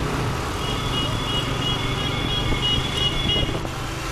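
Motor scooter riding in city traffic: engine hum and road and wind noise. A high electronic beep repeats about three times a second for about three seconds.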